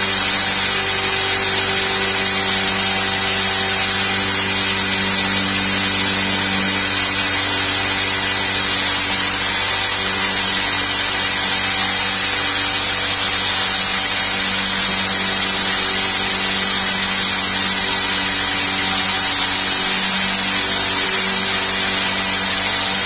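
Electric hand drill running steadily at an even pitch, boring into a wooden door panel with a 9.5 mm Miranda HSS metal-and-wood bit. The bit is cutting slowly and heating up without getting through the wood.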